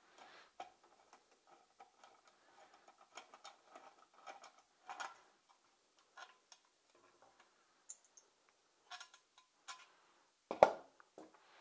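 Light, irregular clicks and ticks of a screwdriver on a small bolt and the plastic pull-start cover being handled as the recoil starter is unscrewed and lifted off a 49cc two-stroke pocket bike engine. One sharp knock near the end.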